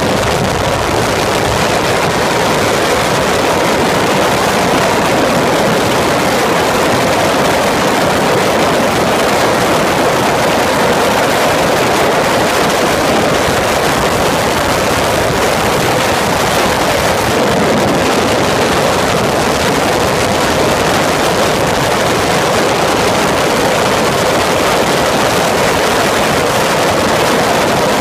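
Steady rush of wind and road noise on the onboard microphone of an open-cockpit Peugeot racing prototype lapping a track at speed, between about 100 and 210 km/h, with the engine buried in the wind.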